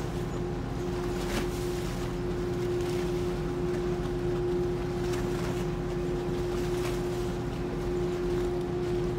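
Ro-ro ferry Jan Śniadecki's diesel engines and machinery running, a steady hum with one strong steady tone over a low rumble.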